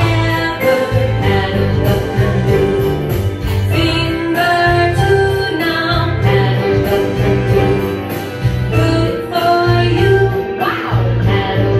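A group of children playing a song together on a piano and electronic keyboards, with children's voices singing along.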